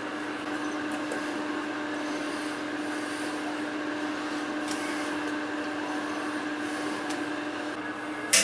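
Battery charger powering a vinegar electrolysis tank, humming steadily. A single sharp click near the end.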